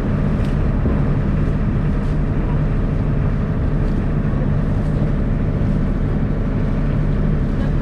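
Small motor launch's engine running steadily while under way, an even low hum.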